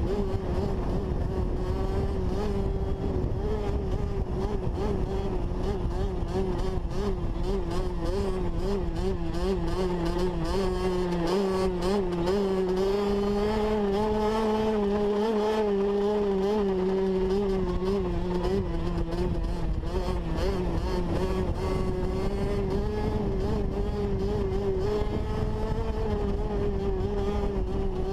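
Kawasaki KX65 two-stroke dirt bike engine running at high revs. Its pitch wavers up and down continuously as the throttle is worked.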